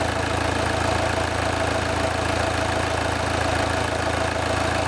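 Four-cylinder diesel engine idling steadily.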